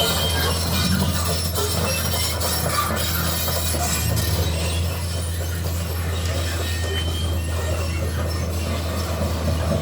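Excavator's steel crawler track chains clanking and squealing noisily as it travels, over the steady drone of its diesel engine.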